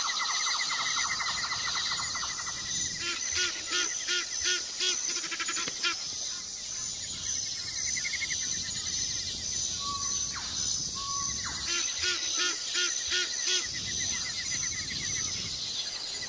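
Wild birds calling over a steady high insect trill: runs of quick repeated calls, about three a second, a few seconds in and again near the end, with a couple of short single notes between.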